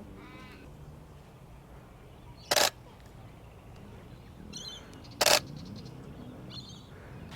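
DSLR camera shutter firing in two short bursts, about two and a half seconds apart. Faint bird calls sound between them.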